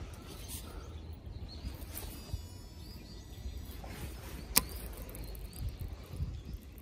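A cast with a baitcasting rod and reel: one sharp click about four and a half seconds in, over a steady low outdoor rumble, with faint high chirps about two seconds in.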